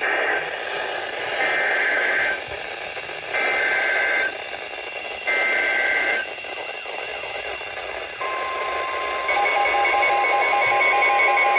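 Weather radio sending SAME digital alert header data: buzzy two-tone bursts about a second long, repeated roughly every two seconds over radio hiss. About eight seconds in, the steady 1050 Hz warning alarm tone starts, and a second later a fast pulsing beep joins it.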